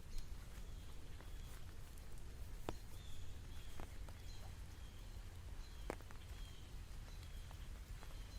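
Rain outdoors: scattered, irregular drops landing as sharp ticks over a steady low rumble, with faint short high chirps repeating about every half second.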